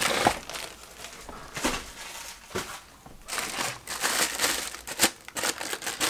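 Plastic packaging crinkling and rustling as it is handled, in irregular bursts with a few sharper crackles and short quieter gaps.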